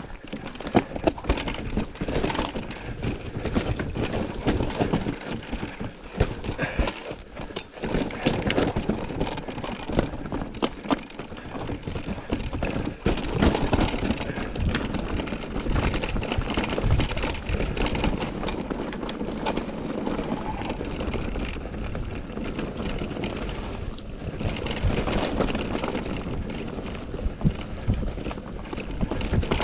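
Electric mountain bike riding down a rough trail: tyres over rocks and dirt with a constant clatter of knocks and rattles, and wind noise on the microphone.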